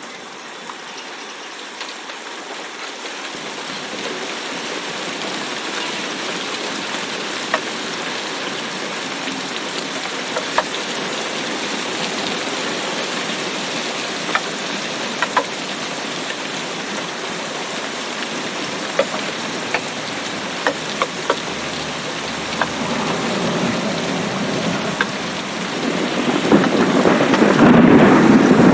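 Steady rain falling, gradually getting heavier, with scattered sharp drips standing out. Near the end, a roll of thunder swells in and becomes the loudest sound.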